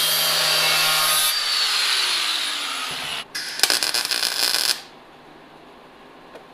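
Angle grinder grinding a weld on a sheet-steel rocker patch panel, then released and spinning down with a falling whine. About three seconds in, a MIG welder crackles for about a second and a half as it lays a tack weld on the seam, then stops.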